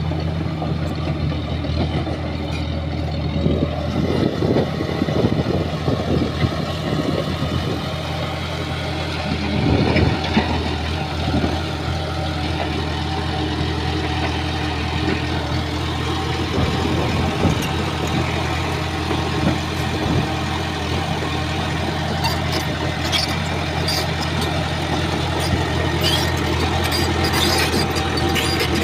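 Shantui bulldozer's diesel engine running steadily while clearing, with irregular cracks and knocks, several of them a few seconds in and again around the middle, and many small sharp clicks near the end.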